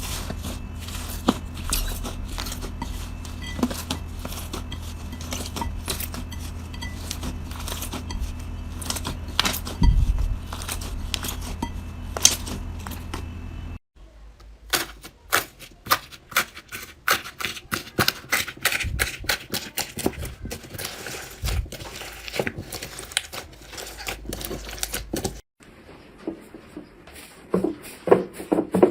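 Slime being squeezed and pressed by hand, giving dense crackling clicks and pops over a low steady hum. The sound changes abruptly about 14 seconds in and again near 25 seconds, where the crackles become sharper and more spaced.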